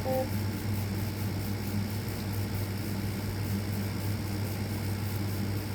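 Steady low hum over a background hiss, with a brief faint beep right at the start.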